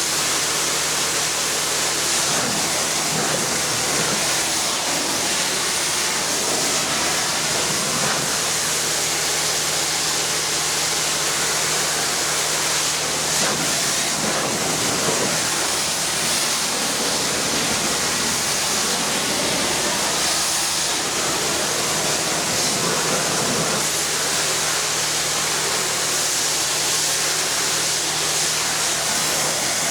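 Pressure washer spraying high-pressure water in a steady hiss, with a steady low hum underneath.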